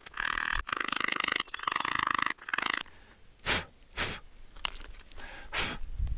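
A pointed quartz stone twisted hard against a softer slate-like stone, grinding a socket into it for a bow-drill bearing block: a rasping grind in two or three long strokes. After that come three short bursts of noise.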